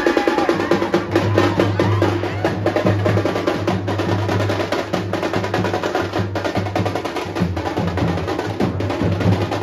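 A street procession drum band playing a fast, dense rhythm of rapid strokes, with a steady low hum underneath.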